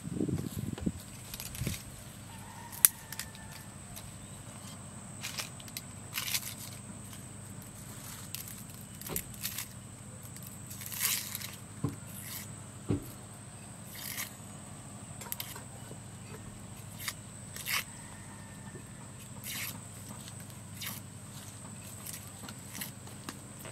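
A kitchen knife peeling the dry papery skin off a red onion: short, crisp scraping and tearing strokes at irregular intervals of roughly one a second, with a sharper click about three seconds in.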